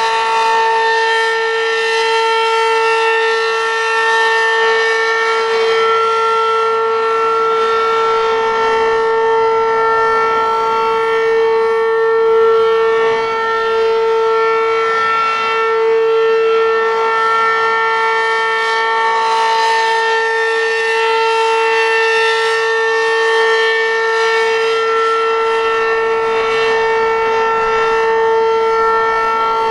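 Werden Electric P-127 outdoor warning siren sounding a full-alert signal: one loud, steady tone held at a constant pitch with overtones, unbroken.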